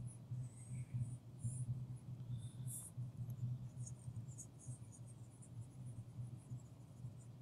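Faint, irregular scratching of a stylus moving over a pen tablet while erasing digital ink, over a steady low electrical hum.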